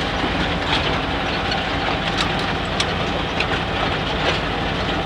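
LuAZ-969A's air-cooled V4 engine running while the vehicle drives, with a steady rumble and scattered rattles and knocks from the body and trailer.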